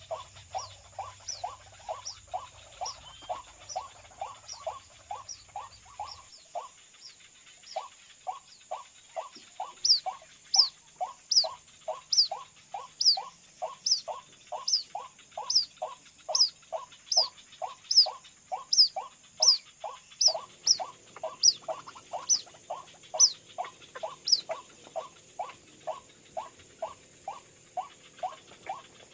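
White-breasted waterhen calls repeated in a fast, regular series, about two and a half a second. The series breaks off briefly about seven seconds in and is louder from about ten seconds on. This is the luring call used to trap waterhens in a rice field.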